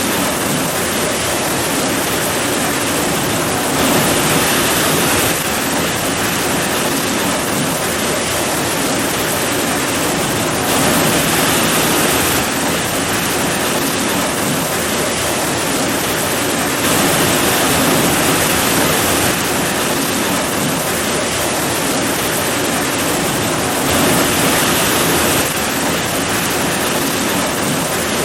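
Heavy rain pouring steadily, a dense even hiss that swells a little for a second or two about every six or seven seconds.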